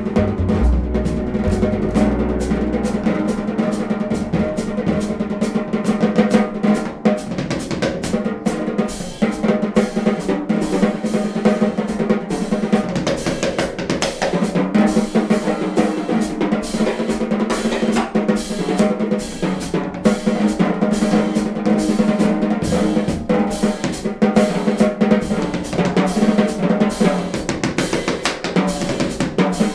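Jazz piano trio playing: a Sonor drum kit plays busy snare, bass drum and cymbal strokes in a steady rhythm under grand piano and upright double bass, with the drums the most prominent part.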